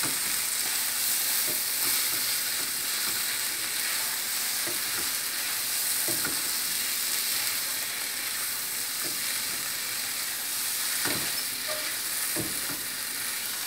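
Pongal (cooked rice and moong dal) being stirred with a wooden spatula through a ghee tempering in a frying pan on a gas flame: a steady sizzle with scattered soft scrapes and knocks of the spatula against the pan.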